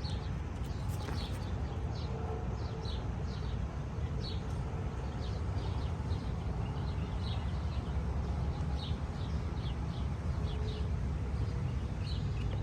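Small birds chirping repeatedly, short high chirps coming a few times a second, over a steady low rumble.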